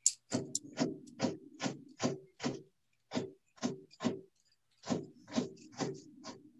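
Pen drawing on paper, close to the microphone: a run of short, quick strokes about two a second, with a couple of brief pauses.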